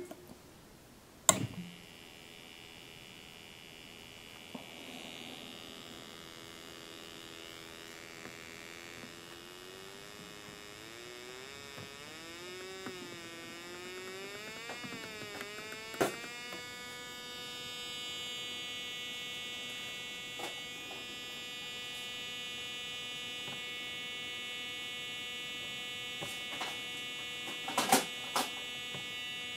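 A switch on a homemade electronic tone box clicks loudly, and the box starts a buzzy electronic hum. Its pitch slides upward and wavers as the frequency knob is turned, then holds steady after another click about halfway through. A few more clicks come near the end as the knobs are worked.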